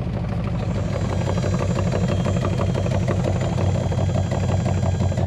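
1974 Chevy C50 tow truck's 400 small-block V8, just started, idling steadily with an even low throb.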